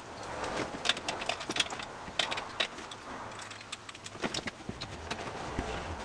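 Clicks, knocks and rattles of cables and plugs being handled and plugged in behind a desk, with rustling as the equipment is moved about.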